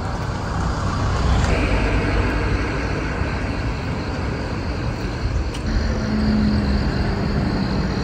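Outdoor road ambience: a steady rumble of traffic passing on the road.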